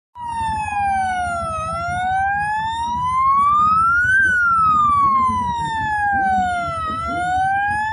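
An electronic siren wailing, its pitch sliding slowly up and down, once every five seconds or so, over the rumble of passing car engines.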